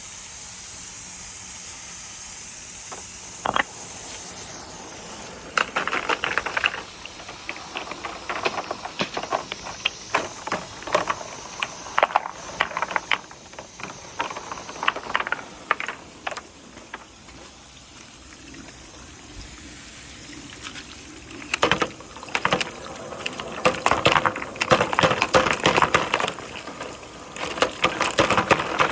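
Balls rolling down a water-filled rain-gutter marble run, with running water throughout. Two spells of rapid clicking and knocking as the balls clatter along the gutters: one starting about five seconds in and running to the middle, and a denser one near the end.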